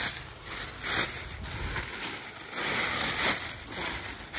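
Thin plastic bag rustling and crinkling as bunches of rambutan on their leafy twigs are pushed into it, in irregular bursts with louder crackles about a second in and again around three seconds.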